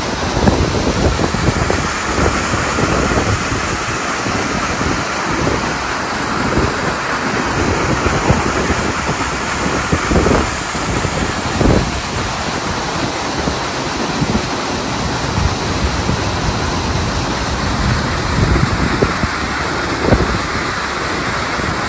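Steady rushing and splashing of a riverboat's paddlewheel churning the river, with wind buffeting the microphone in gusts.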